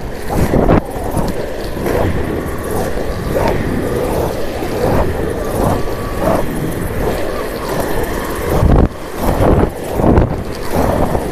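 Wind buffeting the microphone, with rumbling road noise, from a camera moving along an asphalt road; a few sharp jolts and swells break up the steady rumble.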